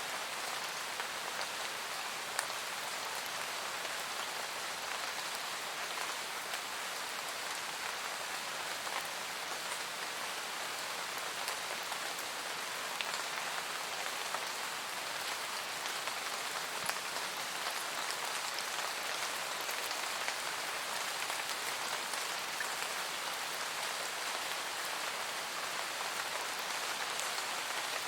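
Steady, even rain falling, with scattered faint drop ticks.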